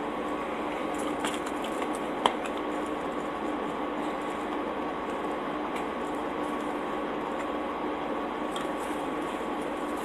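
Faint chewing and handling of soft pretzel-crust pizza, small scattered clicks over a steady background hum. There is a sharp click about two seconds in.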